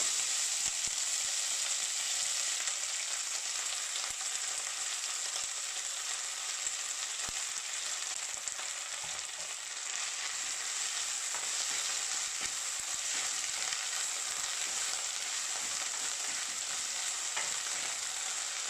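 Drumstick leaves frying with shallots and dried chillies in hot oil in a steel kadai: a steady sizzling hiss, with a few light scrapes and ticks from a wooden spatula stirring them.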